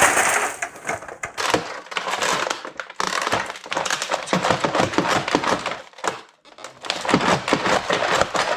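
A sharp hit at the start, then a dense run of small clicks, cracks and crunches from a broken flat-panel monitor's plastic and glass pieces being pried apart and handled, with a short pause about six seconds in.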